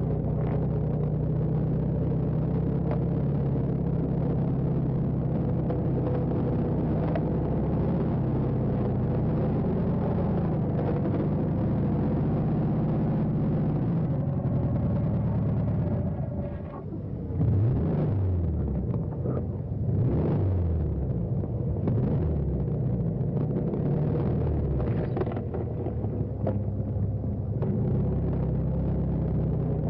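Car engine running with a steady low hum. About two-thirds of the way through it dips briefly, then rises and falls in pitch several times as if revved, before settling back to a steady run.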